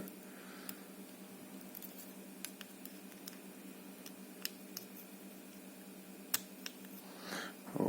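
Faint, sparse clicks and ticks of small metal lock parts and tools being handled while pins and springs are worked into an ABUS 72/40 padlock's core, over a steady low hum.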